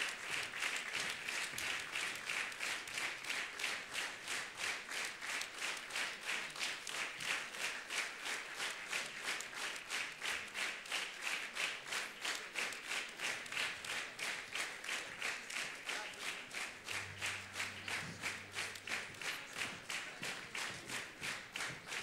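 Concert audience applauding, clapping together in a steady rhythm of about three claps a second.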